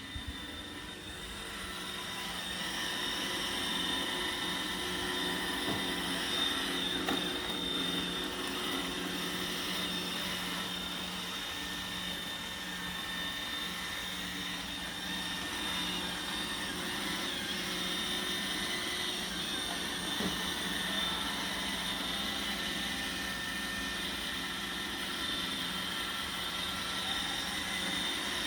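Roomba robot vacuum running: a steady motor whir with a constant high whine, growing louder over the first few seconds.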